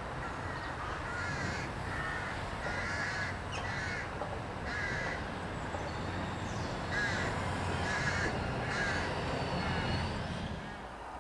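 Crows cawing in a series of short harsh calls, over the steady low rumble of road traffic, which drops away near the end.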